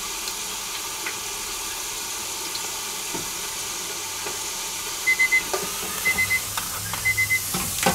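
Fries deep-frying in a closed Tefal Oleoclean Pro deep fryer, a steady bubbling hiss of hot oil. About five seconds in, the fryer's timer starts beeping, three quick high beeps about once a second, signalling the frying time is up; a short knock comes just before the end.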